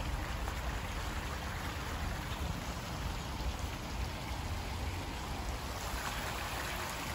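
Steady rush of flowing water, with a low rumble underneath.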